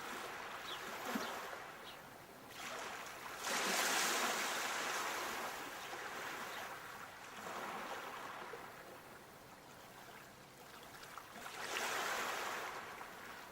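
Sea waves breaking and washing up the shore, the rush of surf swelling and fading, with the biggest surges about three and a half seconds in and again near the end.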